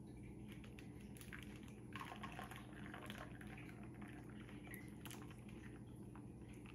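Faint pouring of a thick coconut-milk mixture from a glass measuring cup into a small plastic freezer-pop bag, with light plastic rustles and small clicks, over a low steady hum.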